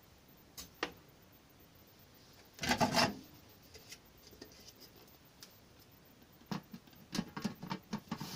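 Handling of a plastic food dehydrator full of bee pollen: a short rustling burst about three seconds in, then a run of light plastic clicks and knocks near the end as the clear lid is set onto the top tray.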